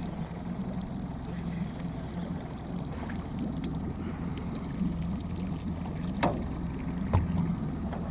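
Boat motor running steadily at a low, even hum, with two sharp knocks about six and seven seconds in.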